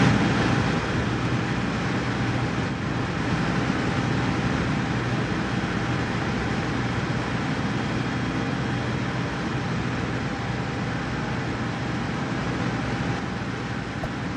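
Steady rumbling and hissing background noise with a faint steady hum under it, and no distinct events.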